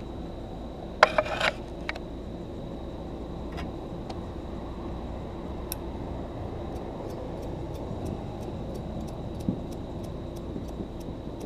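Fireworks going off: a quick cluster of sharp cracks about a second in, then a run of faint, evenly spaced pops about three a second. Under it all is a steady low rumble.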